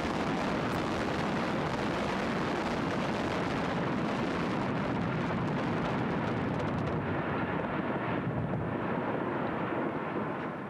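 Explosive implosion of multi-storey hospital buildings: the demolition charges go off in quick succession and merge into one long, unbroken, rumbling collapse with echo. The sound eases off toward the end.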